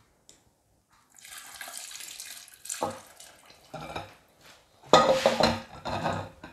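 A thick milk-and-sour-cream sauce pouring from a ceramic bowl onto food in a pot, a steady wet pour starting about a second in. It is followed by clinks and scrapes as the spoon and the tipped bowl knock against the bowl and the pot's rim, loudest about five seconds in.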